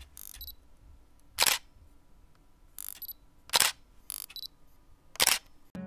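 Camera shutter sound effect, three loud clicks about two seconds apart, each preceded about a second earlier by a softer, shorter click.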